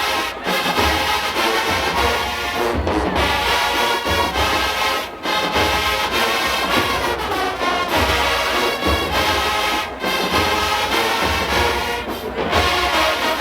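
A marching band playing, led by a full brass section over heavy bass drums, with short breaks in the phrases every few seconds.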